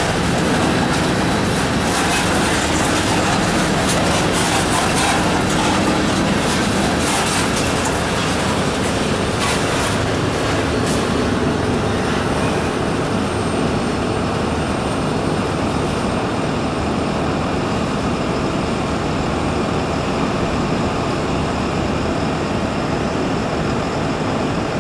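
Covered hopper cars of a slow freight grain train rolling past on steel wheels: a steady rumble with frequent sharp clicks of wheels crossing rail joints. The clicks stop about halfway through, leaving a steady rushing noise as the last cars pass.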